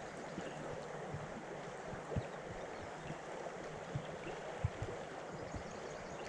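River current flowing steadily in a shallow run, with a few soft low thumps.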